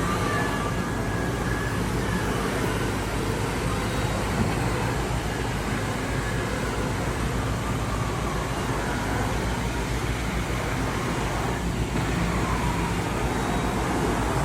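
T290 walk-behind floor scrubber running steadily while scrubbing, its pad drive and vacuum motors giving a constant mechanical hum.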